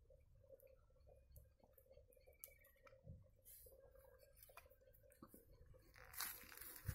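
Near silence: a faint steady hum with a few soft scattered clicks, and a brief rustle about six seconds in.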